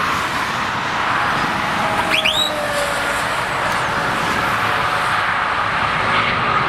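DAF XF106.510 semi-truck driving past at motorway speed in steady traffic noise, its tyre and engine noise falling in pitch as it goes by about two seconds in. A brief high whine rises and curves at the same moment.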